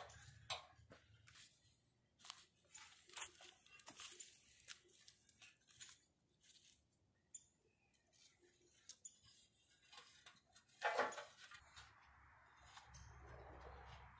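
Faint, scattered rustling and crunching of someone moving about and handling things, with one louder crunch about eleven seconds in.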